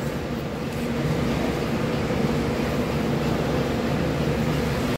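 Steady mechanical drone with a faint low hum and no distinct clinks or knocks.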